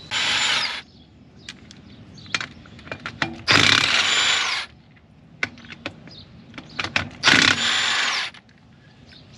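Cordless impact wrench run in three bursts of about a second each, each ending in a falling whine as the motor spins down, with small metal clicks between, as it breaks loose the lug nuts on a field cultivator's wheel.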